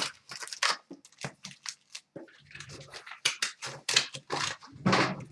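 A trading card pack's wrapper crinkling and rustling as it is handled and torn open, in a run of short, irregular crackles.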